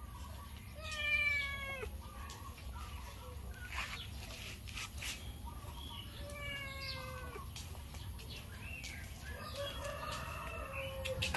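Young cat meowing: three drawn-out meows, each about a second long and dropping in pitch at the end, about a second in, at about six and a half seconds, and a fainter one near the end.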